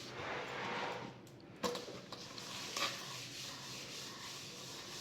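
Paper towel rubbing over a polished granite countertop, a soft rustling wipe, with two light knocks in between.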